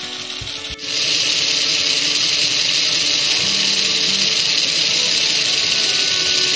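Lego Technic motor-driven engine mechanism spinning fast with a steady, hissing whir. It starts suddenly about a second in, replacing a quieter clicking of gears.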